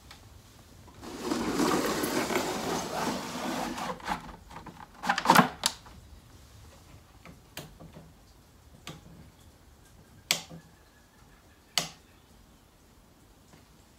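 Wooden sliding door of a 1968 Philips Stabilimatic television cabinet pushed open along its track: a rattling scrape lasting about three seconds. It is followed by a cluster of sharp wooden knocks, the loudest sounds, and then a few scattered knocks and clicks as the cabinet is handled.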